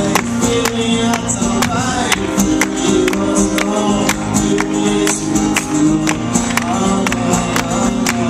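Male singer-songwriter singing in French over his own acoustic guitar, strummed in an even rhythm of about three strokes a second, heard live through the hall's sound system.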